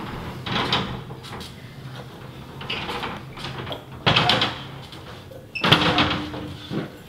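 Knocks, clunks and rustling as a person climbs down a ladder and walks off with a handheld camera. Two sharper knocks come about four seconds in and again shortly before six seconds, with a brief squeak alongside the second.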